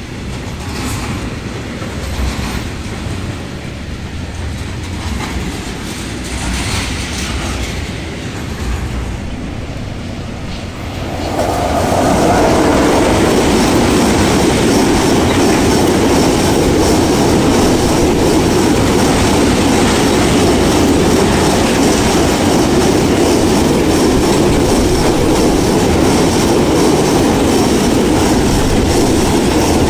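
Freight trains rolling past. A train of tank wagons clatters by on the far track with its wheels clicking over the rails. About 11 seconds in, a car-carrier freight train starts passing close on the near track, and the sound becomes a much louder, steady rolling rumble of wheels and wagons.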